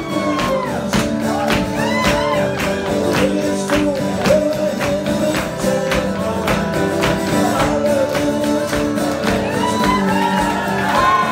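Lively Irish dance music with a steady beat, a crowd clapping along and voices calling out over it.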